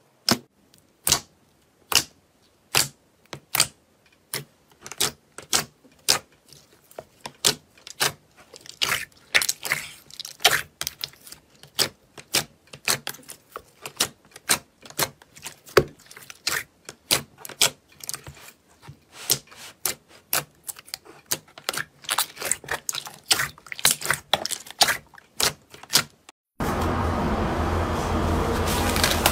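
Glossy slime being pressed and kneaded by hand in a tray, giving sharp irregular pops and clicks as trapped air bursts, a couple a second at first and coming more often later. Near the end it changes abruptly to a steady low rumbling background.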